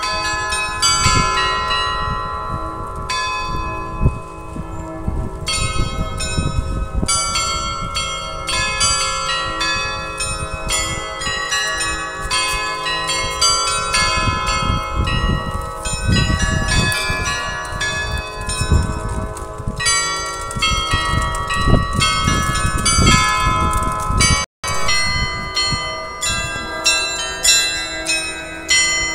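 Facade glockenspiel of small tuned bells playing its noon tune, many quick bell strokes ringing on over one another, over low street noise. The sound cuts out for an instant near the end.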